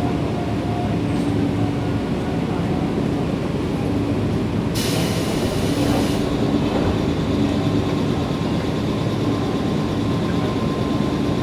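Nankai 7100-series electric train running, heard from inside the car: a steady rumble of wheels on rail with a low motor hum. About five seconds in, a brief high hiss lasting about a second cuts across it.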